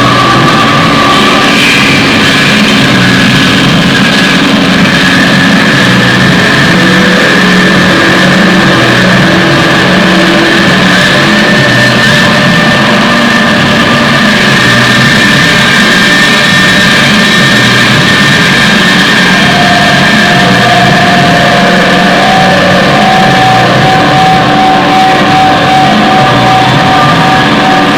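Loud, dense distorted music with long held tones that shift slowly in pitch, like a heavy noise or drone rock piece.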